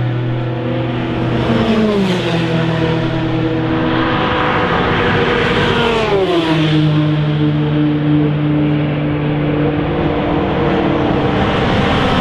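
GTE race car engines running at high revs as cars pass one after another, among them the Ferrari 488 GTE's 3.9-litre twin-turbo V8. The engine pitch drops sharply as a car goes by, about two seconds in and again about six seconds in.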